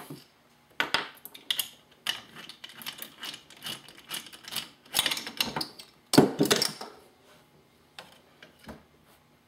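Socket ratchet clicking in quick runs and metal parts clanking as the mounting bolts are backed out of a window regulator's motor, with one louder metal clank about six seconds in.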